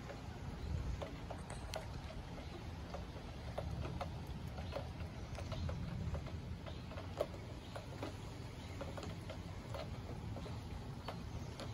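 Light rain: scattered raindrops ticking and pattering at irregular intervals over a steady low rumble.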